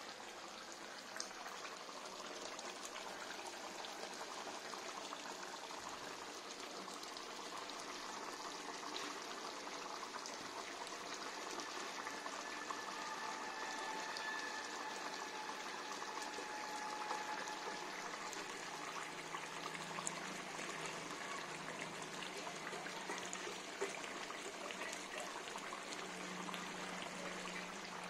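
Steady hiss of a gas stove with pots of curry simmering and steaming on the burners, a faint thin tone coming and going in the middle.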